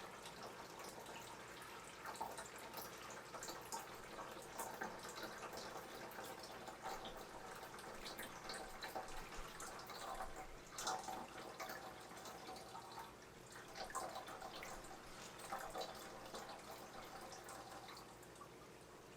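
Aquarium water dripping and splashing lightly in irregular small drips and trickles.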